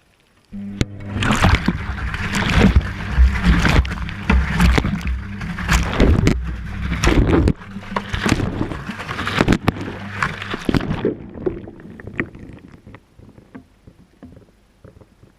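Whirlpool washing machine drum turning in a wash cycle, heard from inside the drum: a motor hum starts about half a second in, with water sloshing and splashing and the load knocking against the drum. The drum stops about eleven seconds in, leaving dripping and small ticks.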